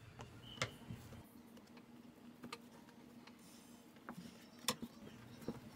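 Plastic bench scraper clicking and tapping on a silicone baking mat while dough is cut and shaped: a few sharp clicks, the loudest about half a second in and again near the end, over a faint low hum.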